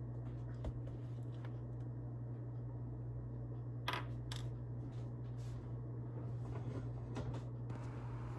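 A few faint clinks of a spoon against a cup or bowl while yeast is spooned into hot water and stirred, over a steady low hum.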